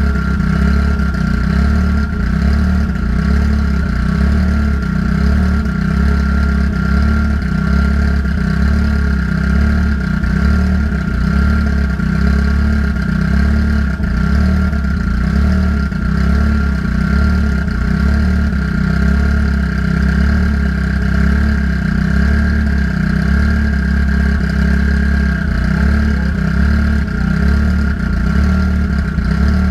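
Car engine idling steadily while its cooling system is burped of trapped air, with a steady high tone above the engine note.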